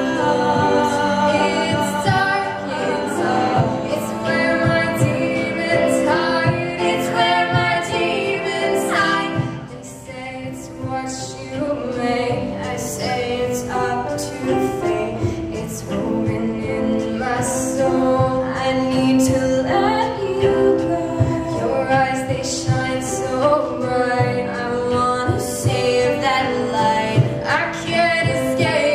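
Two female voices singing with piano accompaniment and beatboxed vocal percussion keeping a steady beat; the sound eases briefly about ten seconds in, then builds again.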